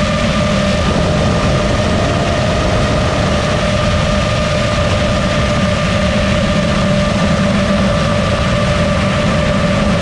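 FPV quadcopter motors and propellers running with a steady whine, over rushing air noise.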